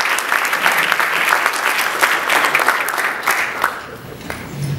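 A room of people applauding, a dense patter of many hands clapping that dies away about four seconds in.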